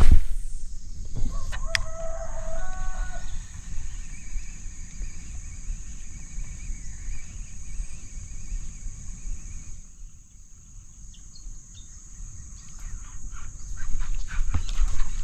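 A sharp thump at the very start, then a rooster crows once, about a second in, for around two seconds. A steady low rumble and a steady high hiss run underneath.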